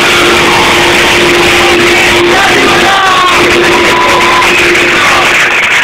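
Live pop-rock band playing loud through a PA, with a long steady held note over the band that breaks off briefly midway.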